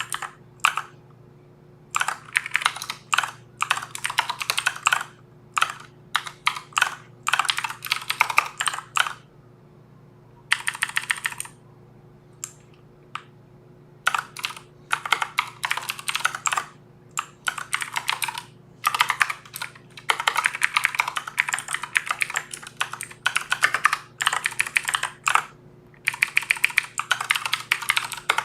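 Computer keyboard being typed on in quick bursts of keystrokes with short pauses between them, over a faint steady low hum.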